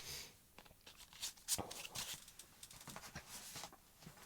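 Box set packaging being handled: faint rustling of card and paper with a few sharp clicks, the loudest about a second and a half in.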